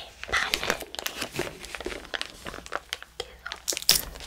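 Clear plastic film crinkling and crackling as it is peeled off a sheet of hardened poured sugar candy, in a rapid run of sharp crackles, the loudest near the end.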